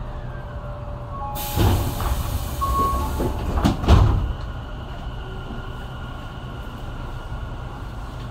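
Tobu 9000 series electric train running at speed, heard from inside the car. About a second and a half in, a rush of hissing noise sets in for a couple of seconds as it runs past another train on the adjacent track, with heavy knocks, the loudest at about four seconds, before steady running resumes with a faint high whine.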